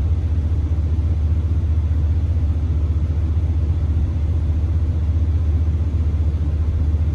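Pickup truck engine running at a fast idle, heard from inside the cab as a steady low hum.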